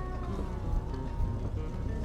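Background music with a note that slides down in pitch, over a steady low rumble.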